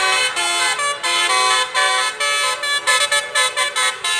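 Basuri "telolet" multi-tone horn on a tour bus, sounding a tune of loud blasts with several notes at once, the pitch stepping from blast to blast. From about three seconds in the blasts turn short and quick.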